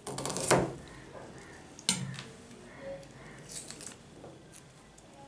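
Kitchen knife cutting through a red onion down onto a plastic cutting board: a crunchy slice in the first half second, a sharp knock of the blade on the board about two seconds in, then a few faint taps.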